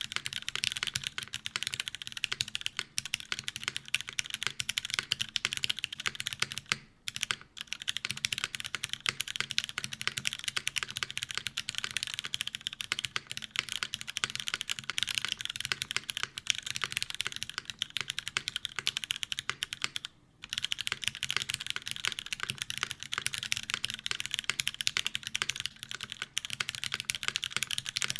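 Continuous fast typing on a Zekk.Works RBB mechanical keyboard with lubed Cherry MX Black linear switches, a full aluminium plate and GMK keycaps, sitting directly on the desk with no mat. The keystrokes come in a rapid stream, with brief pauses about seven seconds in and again about twenty seconds in.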